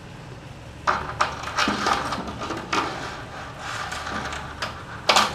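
Tennis ball struck by racquets in a baseline rally: sharp knocks roughly two seconds apart, loudest near the end, with clattering noise between the hits.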